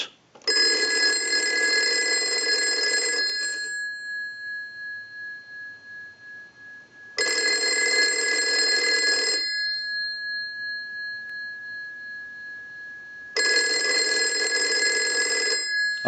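Monophone rotary-dial telephone's bell ringing three times on a ring cycle from a line analyzer, each ring about two to three seconds long with the bell tone lingering briefly after. The bell, whose fault was not ringing, now rings properly after repair.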